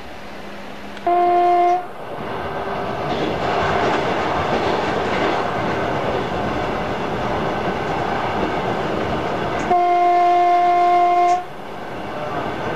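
Electric train's horn sounding twice, a short blast about a second in and a longer one of about a second and a half near the end, each a single steady note. Between the blasts is the steady running noise of the ED6 electric multiple unit, which rises after the first blast.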